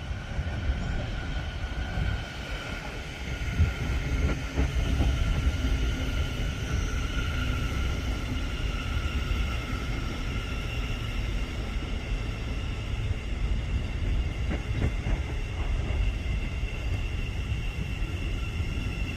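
Train running along the line: a steady low rumble with faint, steady high tones over it and a couple of light knocks.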